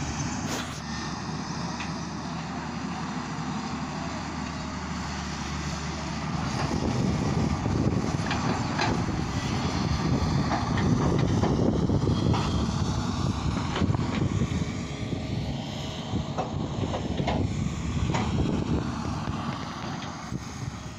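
Wind buffeting the microphone: a gusty, uneven rumble that grows stronger about six seconds in.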